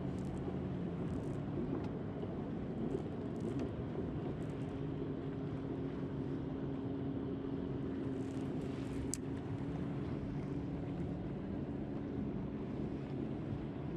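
Steady low motor hum from a boat motor. Its pitch steps up about four seconds in and drops back near the eleven-second mark, over a steady noisy background with a few faint clicks.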